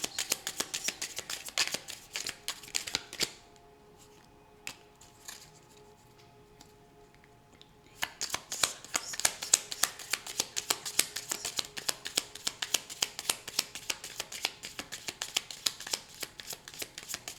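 A tarot deck being shuffled by hand, the cards flicking against each other in fast rattling runs. The shuffling stops after about three seconds, leaving faint steady background music with a couple of single card clicks. About eight seconds in it resumes.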